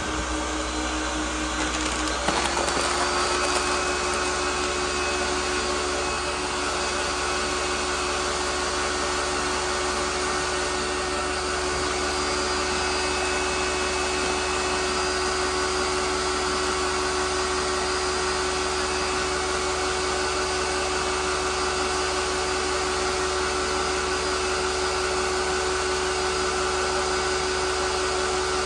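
A small electric motor running steadily, its hum stepping up to a higher pitch about two seconds in and then holding.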